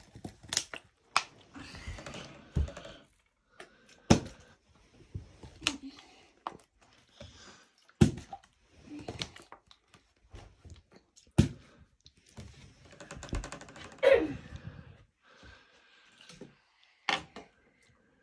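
Plastic drinks bottle being flipped and landing, knocking and clattering on a table and floor: about a dozen separate sharp knocks with handling noise between them.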